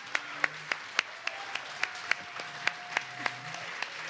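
Audience applauding, with single close handclaps standing out at a steady three or four a second.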